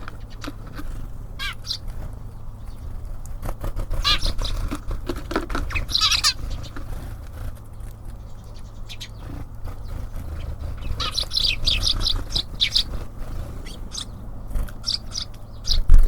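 Small birds at a feeder give short high chirps in several bunches, the busiest a little after the middle, over many light taps and a steady low rumble.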